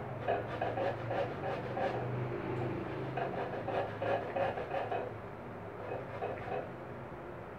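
Santol fruit being grated on a stainless steel box grater: rhythmic rasping strokes, about three a second, that thin out over the last couple of seconds.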